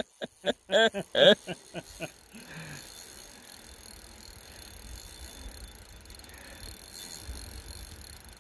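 Short shouted words in the first second and a half, then a fishing reel ratcheting faintly while a big steelhead is played, over a low rumble.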